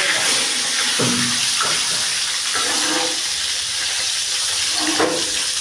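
Rohu fish heads sizzling steadily in hot oil in a wok, turned over with a metal slotted spatula.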